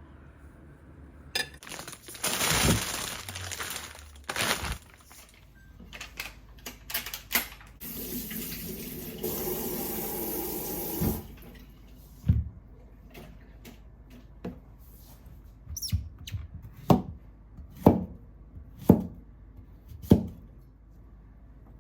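Kitchen sink tap running in two spells, then a series of sharp knocks, about one a second, from utensils or dishes on a hard surface.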